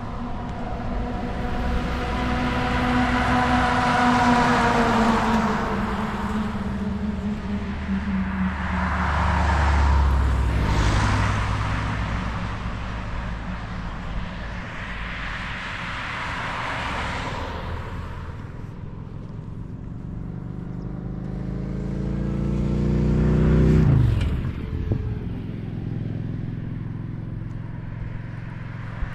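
Road traffic: about four cars pass one after another with engine and tyre noise. The loudest, about 24 seconds in, climbs in pitch as it approaches and then drops sharply as it goes by.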